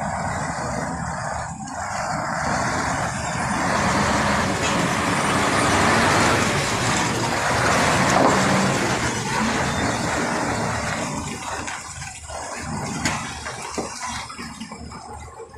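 Tractor-trailer tanker truck driving past close by, its diesel engine running. The sound builds to its loudest about halfway through and then fades away near the end.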